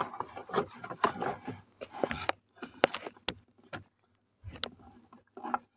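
Irregular rustling, taps and light knocks of diapers being handled and pulled from a wooden shelf, with a quieter gap a little past halfway.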